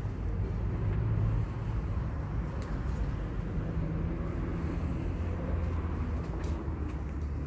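Steady low hum and general room noise of a large shop floor, with a few faint clicks.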